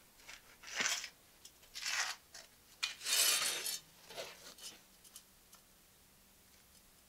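A pencil scraping across a rough concrete subfloor in several strokes as a new layout line is drawn, the longest and loudest stroke about three seconds in, with smaller scrapes and taps after it.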